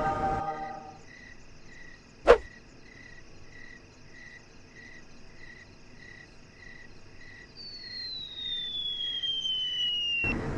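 Crickets chirping steadily, about two chirps a second. A single sharp click cuts in about two seconds in, and over the last few seconds a smooth tone glides downward before a sudden burst of noise near the end.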